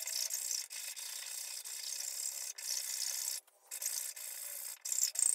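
Round file rasping back and forth in a dowel hole through hard reclaimed hardwood, elongating the hole so the breadboard end can allow for the top's expansion. The scratching runs steadily, with a short break about three and a half seconds in.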